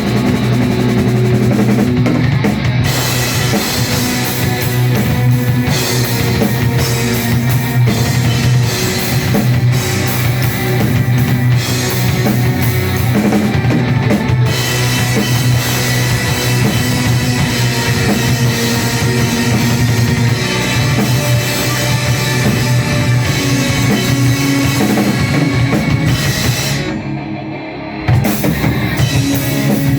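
Live heavy metal band playing an instrumental passage: distorted electric guitars over a pounding drum kit. Near the end the band drops back for about a second, then comes in again all together.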